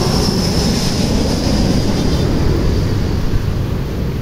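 Airliner's jet engines as it passes low on approach to land: a loud steady roar with a high whine slowly falling in pitch.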